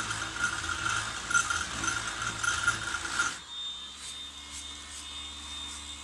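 Ozito 18V cordless random orbital sander running with a 40-grit pad on speed 1 against wood, a steady pulsing whir that cuts off about three seconds in. A faint steady hum remains after it stops.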